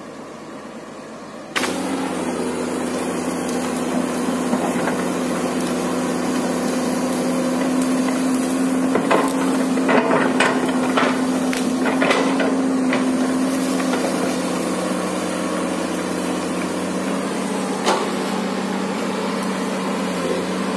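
Komatsu PC200 excavator's diesel engine working steadily under hydraulic load as the machine pushes over trees. Wood cracks and branches snap in a cluster of sharp knocks around the middle, with one more crack near the end. The engine sound comes in suddenly about a second and a half in.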